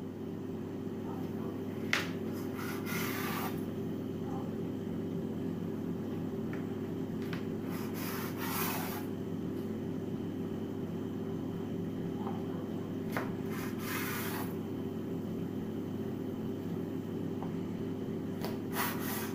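Large kitchen knife drawn through layered, filled dough and scraping on the worktop as the roll is cut on a slant, about four strokes some five seconds apart, over a steady low hum.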